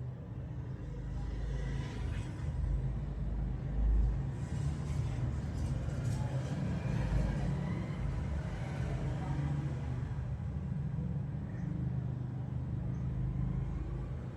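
A low, steady rumble, with a few louder swells about two, four and six seconds in.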